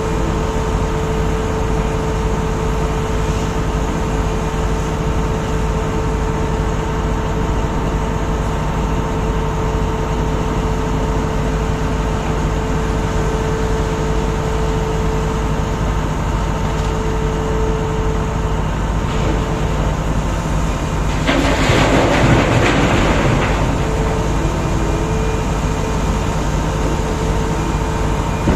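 Heavy mining machinery running steadily: the diesel engines of a large excavator and haul truck make a continuous low drone with a steady hum. About 21 seconds in, a loud rushing, crashing burst lasts about two seconds as a load of rock pours into the truck's body.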